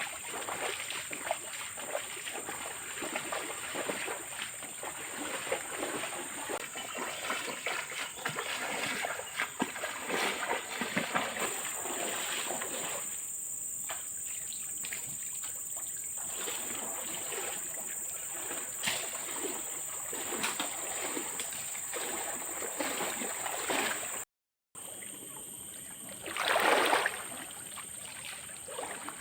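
Water splashing and trickling, with a steady high-pitched drone above it. The sound drops out for a moment near the end, then comes back with a brief louder surge of splashing.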